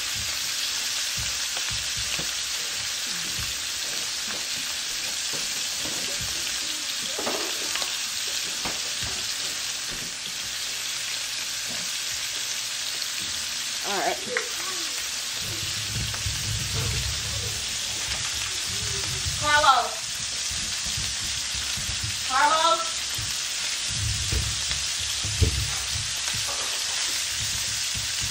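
Lamb chops frying: a steady sizzling hiss, with a few short chirping sounds about halfway through and near the end.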